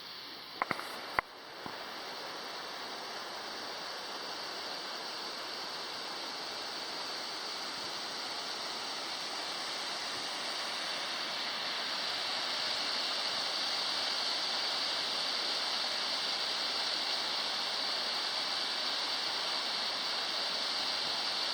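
Steady rush of waterfall water, growing slowly louder as it draws nearer, with a couple of sharp clicks about a second in.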